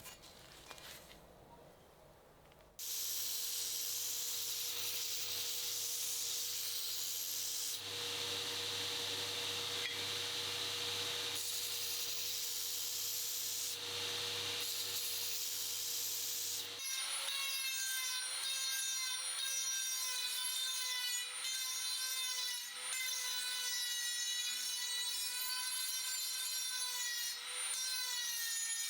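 Electric power tool working the steel of an old meat cleaver. It starts suddenly about three seconds in as a steady motor noise with a low hum. About seventeen seconds in it changes to a high-pitched whine that wavers up and down as the metal is ground.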